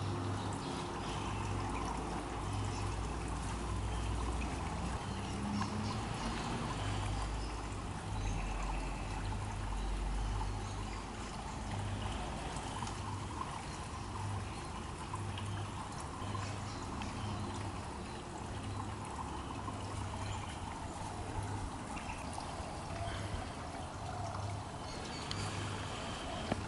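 Steady noise like trickling or running water, with a low hum that pulses on and off about once a second.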